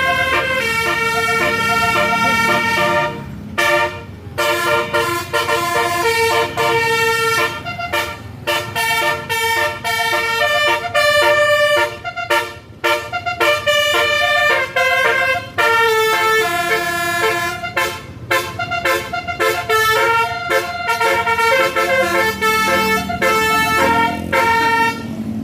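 Basuri telolet horn on a Putera Utama tour bus playing a long tune of clear held notes, stepping from note to note several times a second with brief breaks between phrases.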